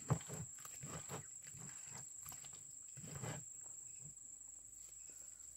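Hands working seasoning into raw fish pieces in a plastic bowl: soft knocks and rubbing, the sharpest knock right at the start and another cluster about three seconds in. A steady high insect trill runs underneath.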